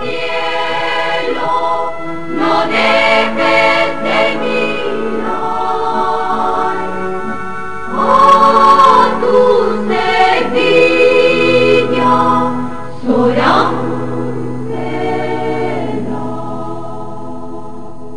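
Choir singing, closing on a long held chord.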